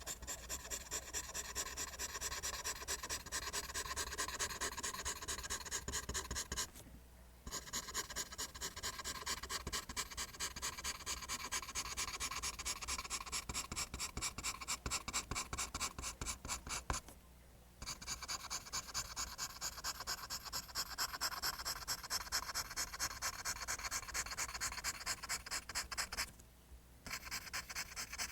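Pencil drawing lines on paper: rapid, evenly spaced scratchy strokes that stop briefly three times.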